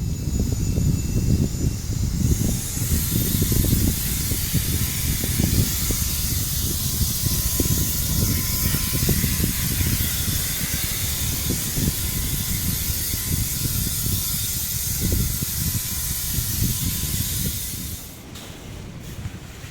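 Strong wind buffeting the microphone in heavy, uneven gusts, with a steady hiss over it from about two seconds in until it cuts off near the end.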